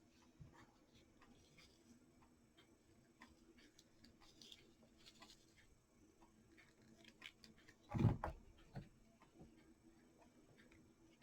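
Faint, irregular small clicks and light taps from hands handling craft pieces on a clock face, with one louder knock about eight seconds in.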